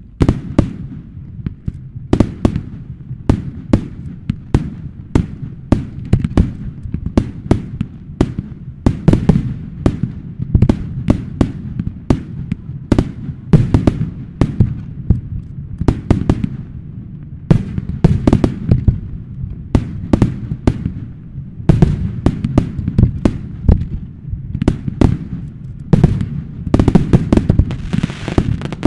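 Fireworks display: a dense, continuous barrage of loud shell bursts and bangs, several a second, with a thick crackling spreading through the bursts near the end.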